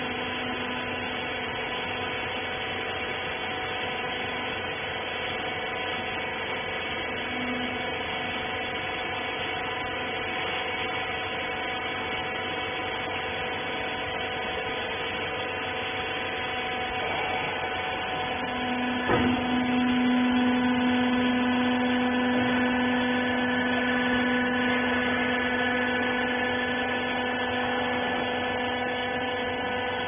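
Rag baler's motor running with a steady hum of several fixed tones. About two thirds of the way through, a single knock, after which the lowest tone of the hum gets stronger and stays louder.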